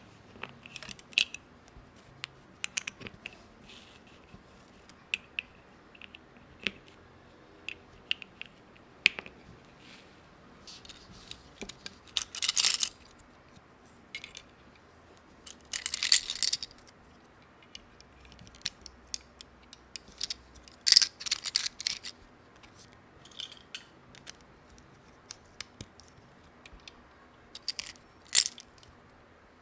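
Small plastic toy pieces being handled, with scattered light clicks and taps throughout. There are three short stretches of rustling, about 12, 16 and 21 seconds in.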